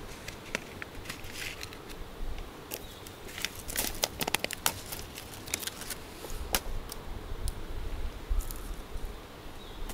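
Plastic meal packaging crinkling and rustling as it is handled and its inner bag pulled out, with scattered sharp clicks and crackles throughout.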